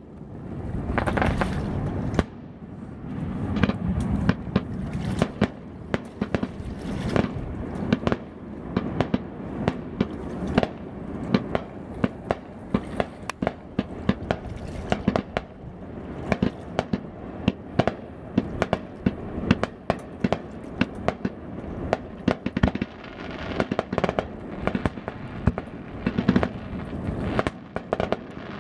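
Aerial fireworks display: a continuous barrage of shell bursts and sharp cracks, several bangs a second over a constant rumble.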